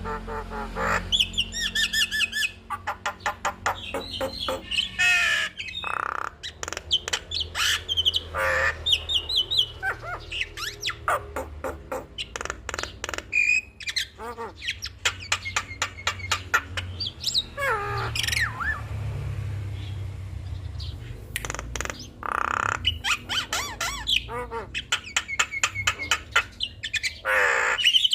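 Javan myna (jalak kebo) singing a fast, varied song of rattling click trains, squawks and short whistled notes, some sliding downward.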